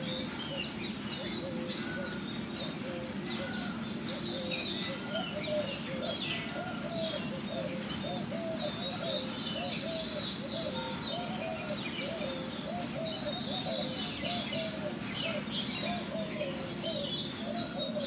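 Several birds chirping together, with many quick, overlapping high chirps. Through the middle a series of short low notes repeats about twice a second.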